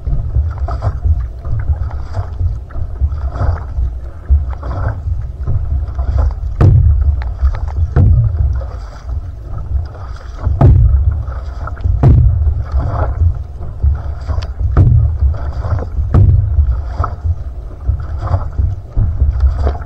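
Outrigger canoe being paddled, heard from low on the hull: a paddle stroke splashing through the water about every second and a half over a steady low rumble of water along the hull. Several strokes carry a sharp slap.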